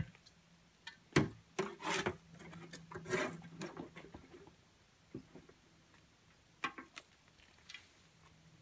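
Irregular scrapes and knocks of a long-handled garden tool working soil in a wheelbarrow, busiest in the first few seconds, with a few more strokes later.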